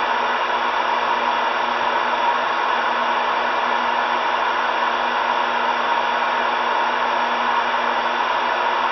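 CB radio receiver on channel 37 (27.375 MHz) hissing with steady static from its speaker. The channel is idle with nobody transmitting, so the open squelch lets the background noise through.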